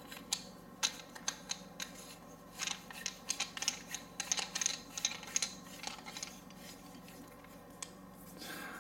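Small metal lightsaber hilt parts clicking and scraping together in the hands as an MHS choke is fitted onto an MHS blade holder. There are light, irregular clicks throughout, with a quick flurry of them in the middle.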